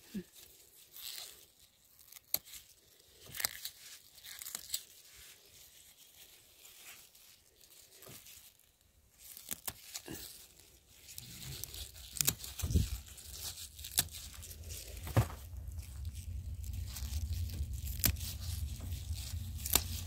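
Crisp snapping and tearing of bok choy stems and leaves picked by gloved hands, in scattered separate snaps. About halfway through a steady low rumble comes in and grows louder.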